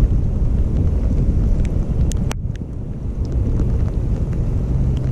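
Wind buffeting the microphone: a loud, uneven low rumble, with a few faint ticks.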